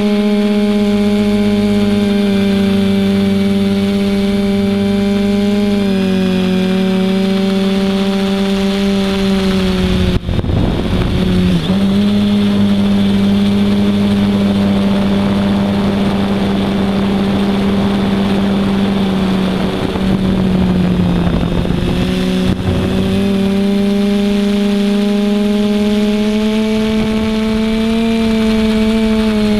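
Multirotor drone's electric motors and propellers humming steadily in flight, the pitch stepping down slightly about six seconds in and rising again near the end. From about ten seconds in, for some twelve seconds, a rough rushing noise, likely wind on the microphone, partly covers the hum, with a brief dip in level at its start.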